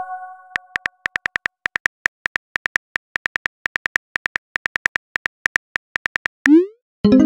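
Phone keyboard clicks typing out a text message, a rapid run of sharp taps, with the fading tail of a message chime at the start and a short rising whoosh of the message being sent near the end.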